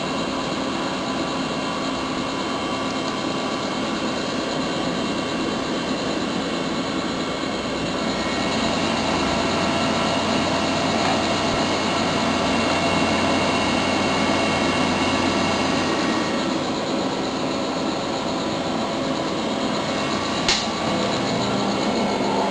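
Electric fan running steadily on a controller's output 4, a whirring hiss with a steady hum, growing a little louder about eight seconds in. A single click sounds near the end.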